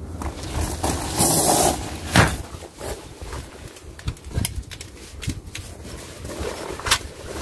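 Footsteps crunching on gravel, then a sharp click and scattered small clicks and rustles as a handgun is handled.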